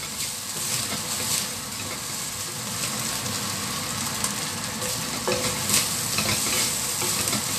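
Rice frying with a steady sizzle in a stainless steel wok, stirred and tossed with a wooden spatula that scrapes across the pan again and again.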